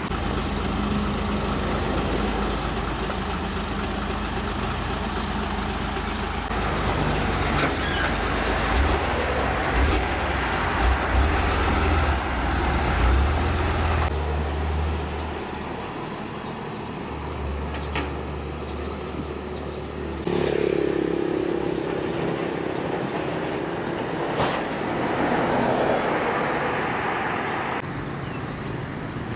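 A motor vehicle's engine running steadily, with the sound changing abruptly several times.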